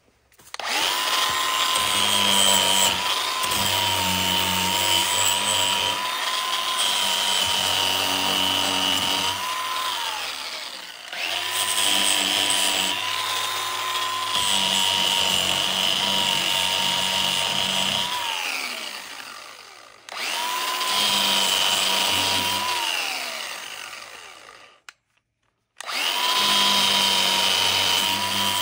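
Electric power tool motor running with a steady whine in four runs of several seconds each. The first three times it is released, its pitch falls away as it spins down.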